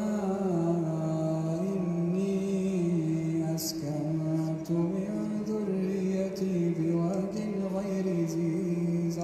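A man chanting Quran recitation in slow melodic tajweed during taraweeh prayer. He sings one long drawn-out phrase, the pitch stepping up and down, with a short break about four seconds in.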